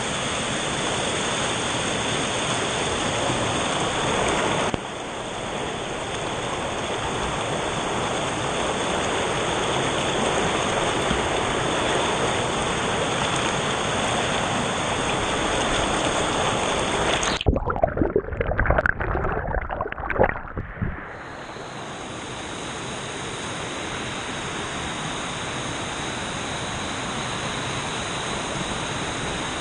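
Loud, steady rush of waterfall water. About 17 seconds in, a few seconds of irregular knocks and bumps break through before the steady rush returns.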